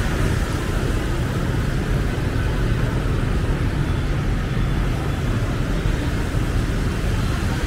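Steady street traffic noise: a continuous low rumble of passing vehicles with no single event standing out.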